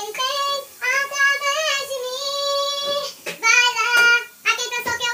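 A high voice singing a slow gospel song, holding long notes in phrases with short breaths between, with little accompaniment heard under it.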